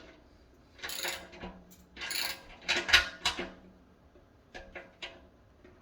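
Metal clinks and clatter as steel stove parts and a socket wrench are handled, with a scrape about two seconds in and the loudest clank about three seconds in, then a few light ticks.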